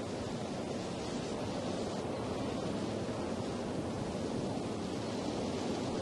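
A steady, even rushing noise like wind or distant surf, unchanging throughout, with no distinct sounds in it.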